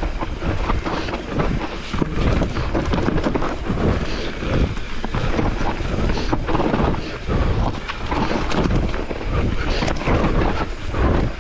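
Mountain bike riding down a rough trail: wind buffeting the microphone, with the rumble of tyres over dirt and rock and a constant clatter of short knocks and rattles from the bike.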